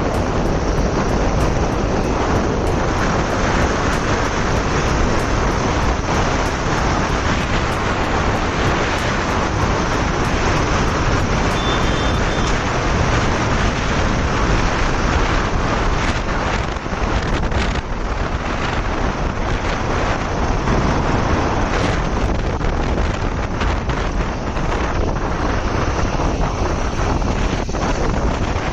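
Steady, loud road and wind noise from a moving vehicle, with wind rushing over the microphone.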